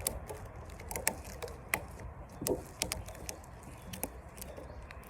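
Light, irregular clicks and taps from a rubber band being stretched and snapped around a watermelon, over a low steady background rumble.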